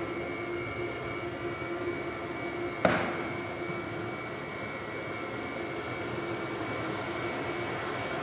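Steady rumbling drone with a few held tones, and one sharp knock about three seconds in that rings out briefly.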